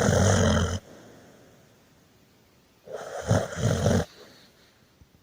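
Snoring: one snore breath ends under a second in, and a second one starts about three seconds in and lasts just over a second, with a fluttering low end.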